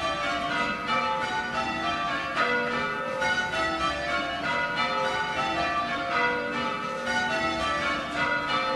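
Church tower bells rung full circle in change ringing, striking one after another in a steady, even stream of overlapping, ringing strokes: the opening rounds, just after the call for the treble to start.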